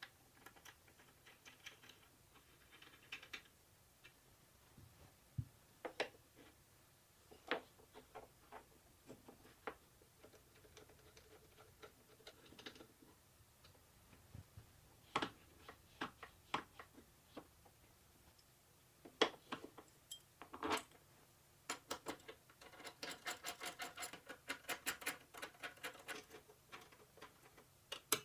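Faint clicks, taps and light rattles of small metal hardware and plywood parts being handled and fitted with a hex key, with a quick run of ticking for a few seconds near the end.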